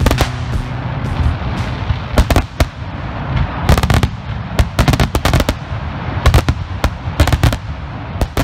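Boomin Bulldog 'Live Free Or Die' consumer firework shots bursting in the air, a quick irregular string of sharp bangs with clusters of crackle over a low rumble. They thin out near the end.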